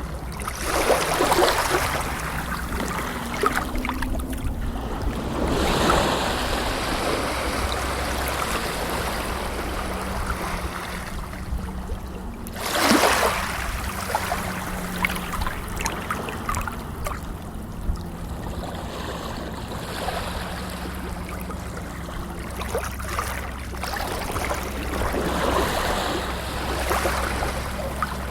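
Water rushing and splashing, swelling louder every several seconds, over a steady low rumble.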